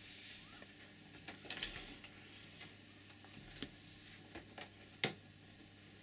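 Several soft clicks and taps at irregular intervals, the loudest about five seconds in, over a faint steady hum.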